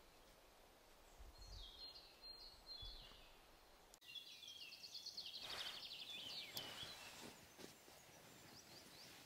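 Faint songbirds singing: a short descending run of notes about two seconds in, then a longer rapid trill from about four seconds in, with a few faint clicks.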